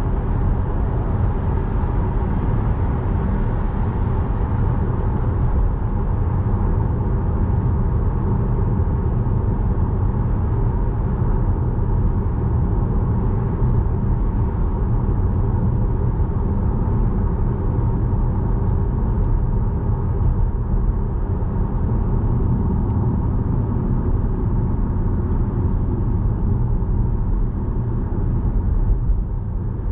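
Car travelling at a steady speed on a dual carriageway: constant low road and tyre noise with engine hum.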